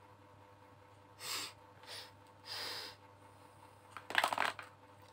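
Two soft breaths or sniffs in the first three seconds, then a short burst of sharp, spiky sound about four seconds in.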